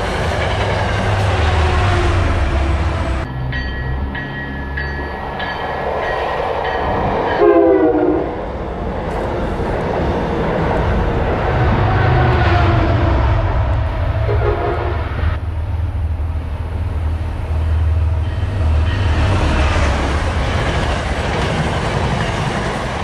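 MBTA commuter rail trains passing at speed: the steady low drone of a diesel locomotive and the rush of bilevel coaches over the rails. A short, loud train horn blast sounds about seven seconds in.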